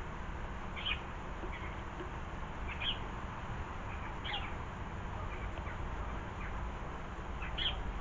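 Small garden birds giving a few short high chirps, spaced a second or more apart, over a steady low background rumble.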